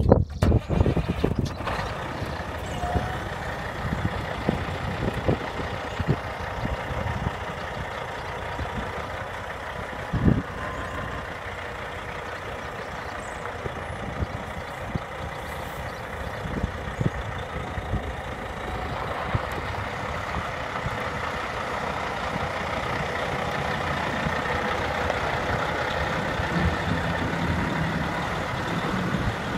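Caterpillar C15 inline-six diesel of a 2007 Kenworth T600 tractor idling steadily. It grows slowly louder over the last third, with scattered sharp clicks and knocks over it.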